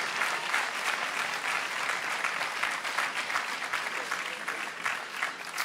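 Audience applauding, the clapping gradually thinning and growing quieter toward the end.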